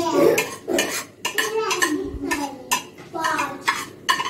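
Clinks and knocks of china plates and utensils, with a voice talking indistinctly underneath.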